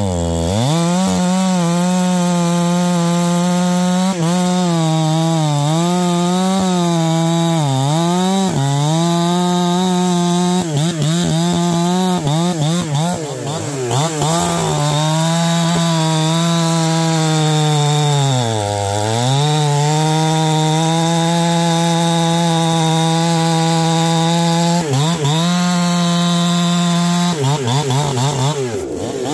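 Ported Neotec NH872 two-stroke chainsaw (Husqvarna 372 clone) with a 28-inch bar, running flat out through wood. Its high, steady scream sags in pitch several times as the chain loads up in the cut, deepest about two-thirds through, and recovers each time.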